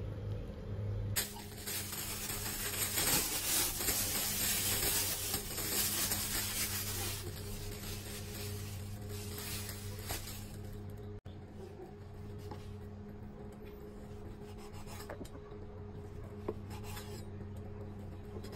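A loud, even hiss through the first half, then quieter rubbing and handling noise of tofu skin being worked on a chopping block, with a few short taps. A steady low electrical hum runs underneath.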